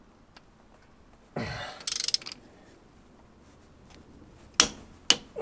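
Hand wrench on a Subaru EJ20's crankshaft pulley bolt: a short low groan as it takes load about a second and a half in, then a quick run of ratchet clicks, and two sharp metallic clicks near the end.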